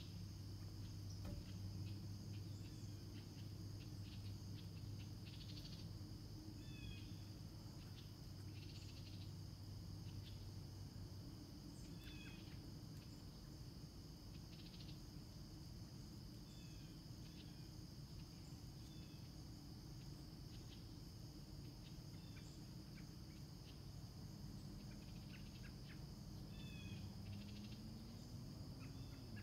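Faint early-morning field ambience: a steady chorus of crickets giving a constant high ring, with short bird chirps every few seconds and a low steady hum underneath that fades about halfway through.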